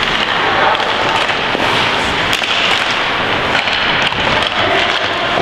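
Ice hockey play: skate blades scraping on the ice and sticks clacking against the ice and puck, a steady crackling noise with many sharp clicks scattered through it.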